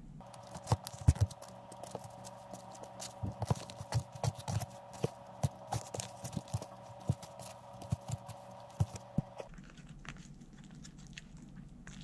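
Wooden chopsticks clacking and tapping against a disposable noodle bowl while instant black bean noodles are tossed in their sauce: irregular sharp clicks, several a second, over a steady hum that stops about nine and a half seconds in.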